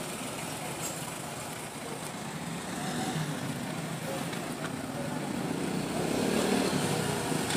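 Street traffic: vehicle engines and tyres as cars and a pickup pass close by, growing louder near the end.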